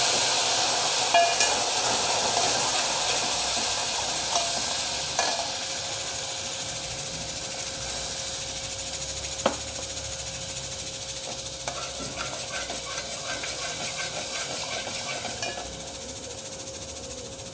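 Turmeric and whole spices in hot oil in an aluminium pot, sizzling and hissing after water is added to stop the masala burning. The hiss slowly dies down, with a few light clinks of a metal slotted spoon against the pot.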